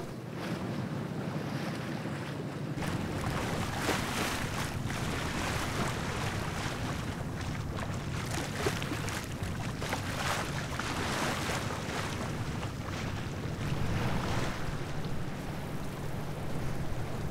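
Sailing boat under way: water rushing and sloshing past the hull, with wind buffeting the microphone in uneven gusts over a low steady rumble.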